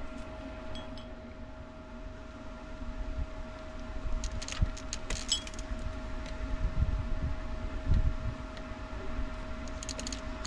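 A steady mechanical hum with a constant tone, and light metallic clinks and jingles about four to five seconds in and again near the end.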